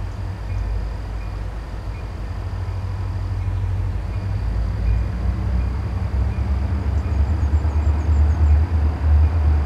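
Diesel freight locomotive approaching out of sight, its low engine rumble growing steadily louder.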